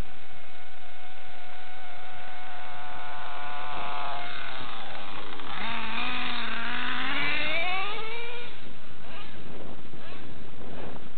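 Dynamite .28 big-block nitro engine of a Traxxas Revo RC truck running at a steady pitch, then dipping about halfway through and climbing steadily for a few seconds as the truck accelerates.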